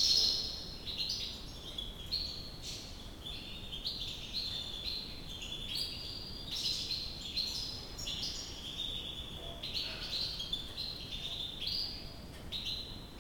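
European goldfinch twittering song: a steady run of quick, high notes that jump up and down in pitch.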